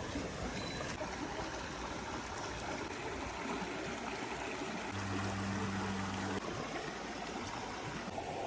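Stream water flowing steadily. A low, steady hum joins in about five seconds in and stops about a second and a half later.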